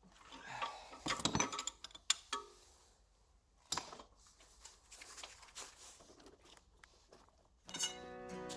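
Irregular light knocks, clinks and scraping of parts and tools being handled at a workbench, with music coming back in near the end.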